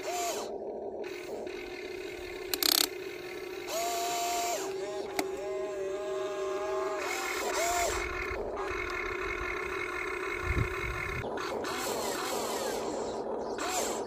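Huina radio-controlled excavator's electric motors whining as it works its arm and bucket. Under a steady hum, higher whines rise, hold and drop away as each motor starts and stops. There is a sharp knock about three seconds in.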